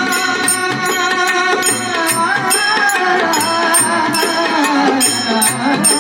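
Devotional bhajan music: harmonium holding steady notes under tabla, with a singing voice gliding through a long ornamented phrase that starts about two seconds in and falls toward the end, over an even beat of sharp, bright percussive strikes.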